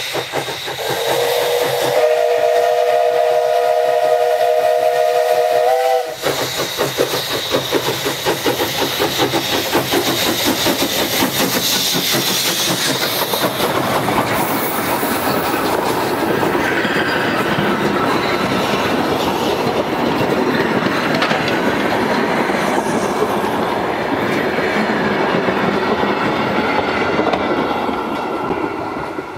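Danish DSB class F 0-6-0 tank steam locomotive No. 654 blowing one long whistle blast of about five seconds. The locomotive and its coaches then roll past close by with a fast, continuous clatter over the rail joints, which fades near the end as the train moves away.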